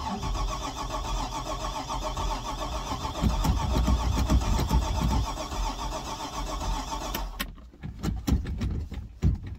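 A Stingray cuddy cabin boat's engine being cranked over by its starter without firing, for about seven seconds, then the cranking stops and a few clicks follow. It is the first start attempt after the boat sat in hurricane floodwater, and the engine turns over freely, not hydrolocked.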